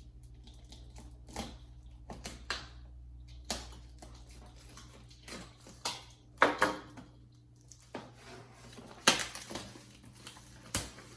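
A cardboard box being opened and its packaging handled: scattered knocks, scrapes and rustles, the loudest about six and a half and nine seconds in, over a low hum that stops about eight seconds in.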